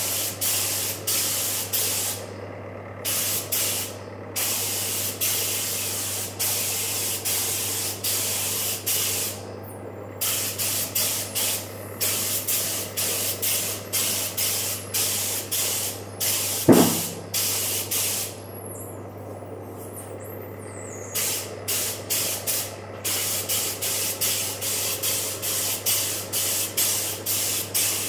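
Gravity-feed paint spray gun on a compressed-air hose hissing in short bursts, about two a second, as the trigger is pulled again and again, with a few pauses of a second or two. A steady low hum runs underneath, and a short, loud, pitched sound comes about two-thirds of the way through.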